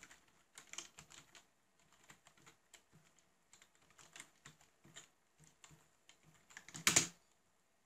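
Typing on a computer keyboard: a string of irregular keystroke clicks, with one louder key strike near the end.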